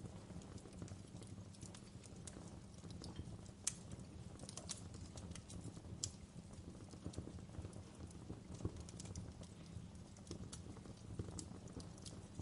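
Wood fire crackling: irregular sharp pops and snaps over a low, steady rumble of the burning fire, with a few louder pops among them.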